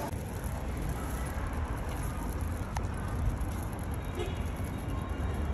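Steady street background noise, a low rumble of road traffic under an even hiss, with a single sharp click nearly three seconds in.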